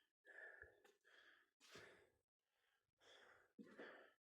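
Near silence, with a few faint, soft sounds.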